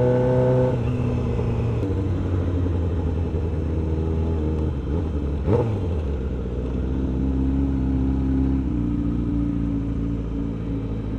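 Yamaha R6 sport bike's inline-four running at low revs while riding slowly, its engine note shifting in pitch a few times, with a brief rise and fall about five and a half seconds in.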